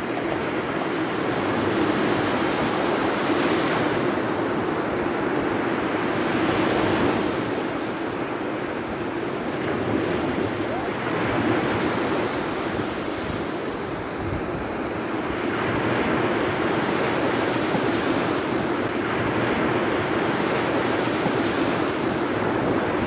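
Sea waves breaking and washing up a sandy beach, the surf swelling and easing every few seconds.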